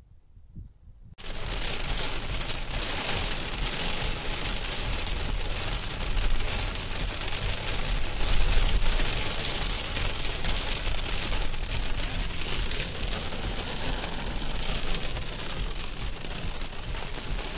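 A dense, steady crackling hiss that starts suddenly about a second in, with a low rumble under it.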